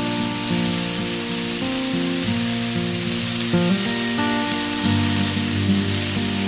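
Background music with slow, held notes, over the steady sizzle of clams simmering in white wine in a cast iron skillet.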